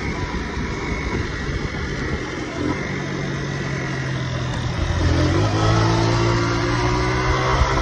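Honda motorcycle engine running under way, with wind rushing past the microphone; it gets louder about five seconds in and rises in pitch near the end as the bike speeds up.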